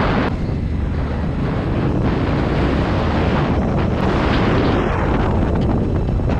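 Motorcycle engine running while riding a rough dirt track, heard under heavy wind noise on the microphone as a steady loud rush with a strong low end.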